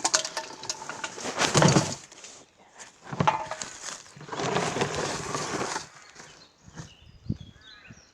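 Rustling and scraping handling noise in three spells, like gear being moved about, then quieter with faint bird chirps near the end.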